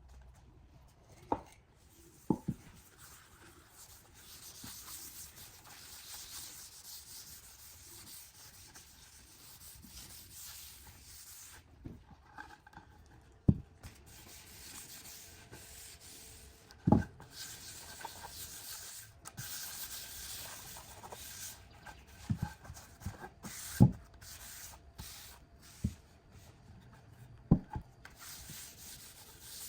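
Abrasive rubbing on timber, starting and stopping in spells of a few seconds. About eight sharp knocks break in, the loudest about halfway and a little past the middle.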